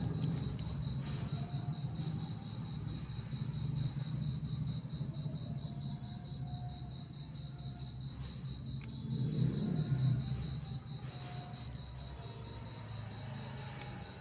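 Crickets trilling steadily: a high, evenly pulsing trill with a second, higher steady tone above it, over a low hum.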